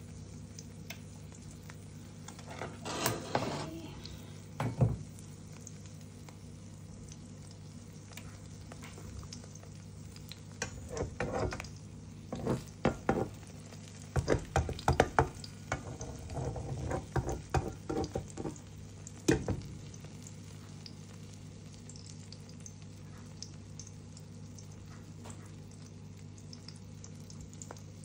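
Egg omelette frying gently in a nonstick pan with a faint steady sizzle. A spatula scrapes and taps against the pan in short bursts a few seconds in and repeatedly through the middle stretch.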